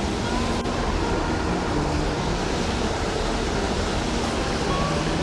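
Steady rushing of water pouring over a small spillway.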